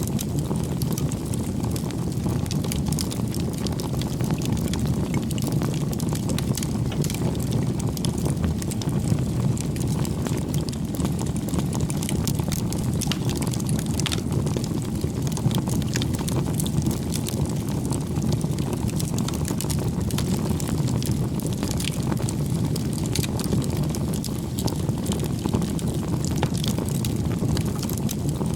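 Wood bonfire burning: a steady low rush of flame with frequent sharp crackles and pops from the burning wood.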